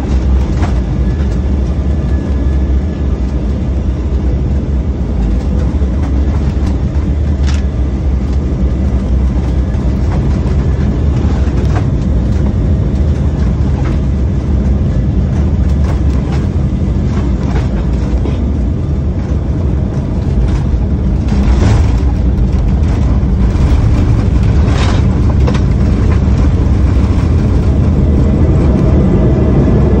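Inside the cabin of an Embraer 190 airliner, its GE CF34 turbofans and the airflow make a steady low rumble through final approach, touchdown and the runway rollout, with scattered knocks and rattles. The noise grows louder about two-thirds of the way through, with a cluster of sharp knocks.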